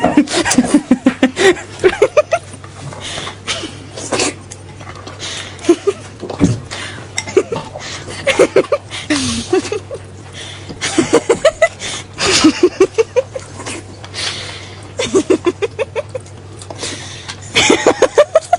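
A person laughing hard in repeated bouts of rapid "ha-ha" pulses, with breathy pauses between the bouts.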